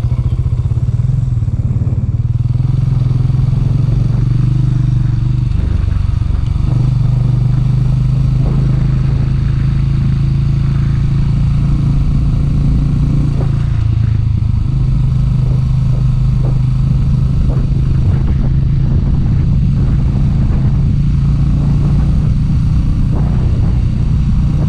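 Motorcycle engine running under way, its note held steady, with two brief changes in pitch about a quarter and about halfway through as the rider works the throttle or gears.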